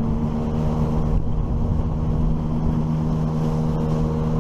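9.8 hp outboard motor on an inflatable PVC boat running steadily at an even speed.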